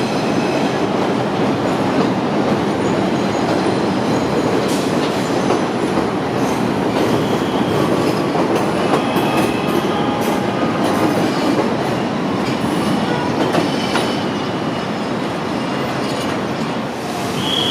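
New York City subway train running on the rails: a steady loud rumble of wheels on track, with scattered clicks from the rail joints and brief high wheel squeals.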